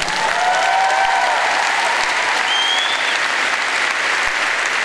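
Audience applauding steadily, with a few brief cheering voices in the first second or so.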